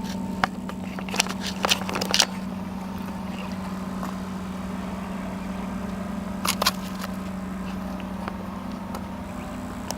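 Steady low engine hum, unchanging in pitch, with a few sharp clicks and knocks in the first two seconds and again about six and a half seconds in.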